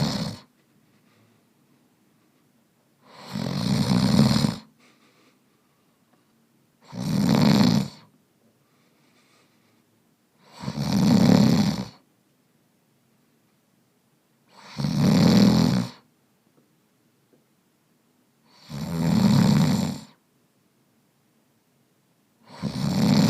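A man snoring in his sleep, recorded by a phone sleep-tracking app: six snores in a steady rhythm, about one every four seconds, each lasting a little over a second.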